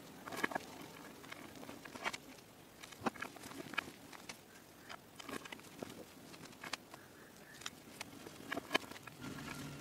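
A hand crushing and crumbling pieces of gym chalk reformed with cornstarch paste. Irregular crunchy crackles come about one or two a second as it breaks, while crumbs patter onto a pile.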